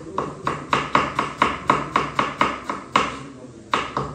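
Kitchen knife slicing a tomato on a wooden cutting board, the blade knocking the board in a quick even rhythm of about four strokes a second. The strokes pause briefly about three seconds in, then pick up again.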